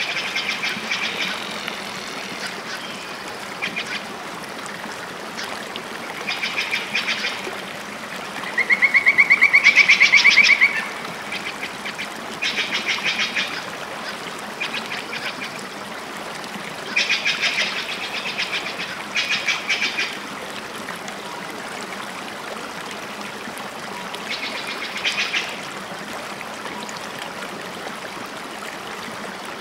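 Wildlife ambience: short, rapid rattling animal calls in bursts every few seconds over a steady background hiss. The loudest is a trill of about two seconds, a third of the way in.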